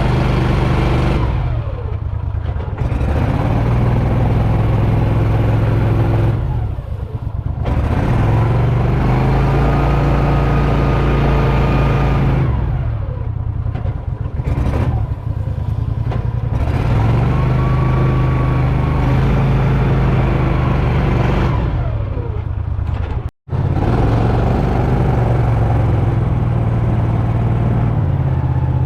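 An engine running at high throttle, easing off and speeding up again about five times, its pitch falling and rising with each change. The sound cuts out completely for an instant about two-thirds of the way through.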